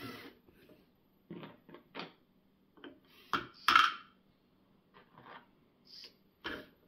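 LEGO robot arm's motors and gear trains moving in short separate bursts, with plastic clicks and clatter of LEGO parts; the loudest knocks come about three and a half seconds in.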